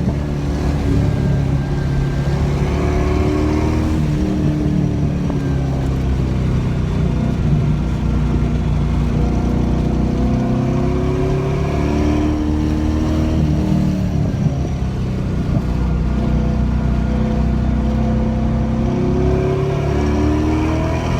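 LS1 V8 engine in a BMW 318ti under hard track driving, its pitch climbing as it accelerates and dropping off as it slows, several times over.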